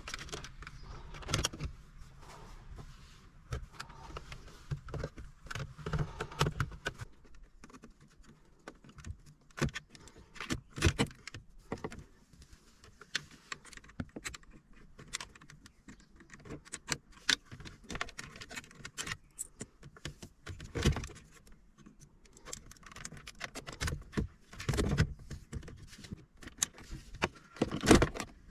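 Plastic centre-console trim being pried loose and handled, with irregular clicks, snaps and light knocks of plastic clips, panels and tools, some in quick clusters.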